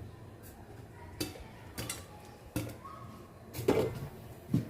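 Popcorn kernels popping in a pot: a handful of sharp, irregular pops a second or so apart.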